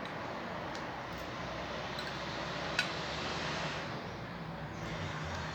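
Steady hiss-like background noise with one sharp click a little under three seconds in.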